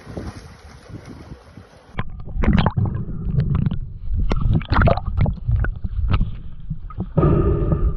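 Wind and sea hiss on a phone microphone. About two seconds in it gives way to underwater audio: a muffled rumbling of moving water, broken by many bubbling pops and clicks.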